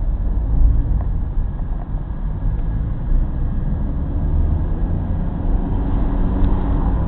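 Steady low rumble of a car being driven, its engine and tyre noise heard from inside the cabin.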